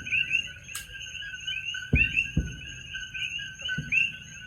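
A continuous chorus of coqui frogs calling. Distant fireworks go off over it with low booms, two close together about two seconds in and another near the end.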